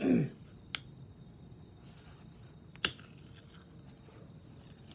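Pull-tab lid of a sardine tin being worked open: a few sharp metallic clicks, the loudest about three seconds in.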